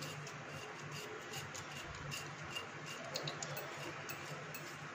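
Hot oil in a kadhai crackling faintly, with scattered small irregular pops and ticks as dried fenugreek is sprinkled in.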